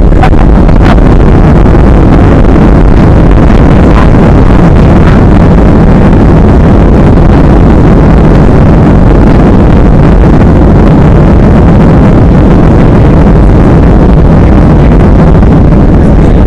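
Very loud, steady roar in the cabin of a Boeing 737-800 rolling out on the runway just after touchdown: its CFM56 engines and the wheels rumbling on the runway, with the ground spoilers raised.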